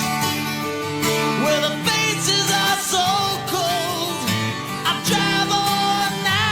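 Background country-style song: a singing voice over acoustic guitar.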